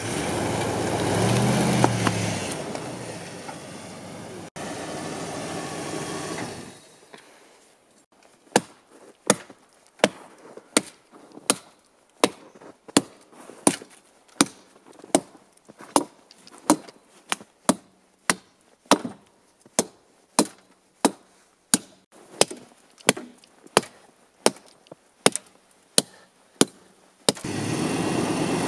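Steel axe chopping a fallen tree trunk in snow, a long run of sharp, even strokes about two a second. The pickup truck's engine runs for the first few seconds and comes back in near the end.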